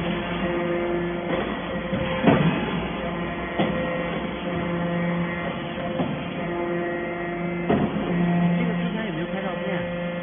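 Hydraulic metal shaving baler running: a steady machine hum at a fixed pitch that swells and fades, with a few sharp knocks.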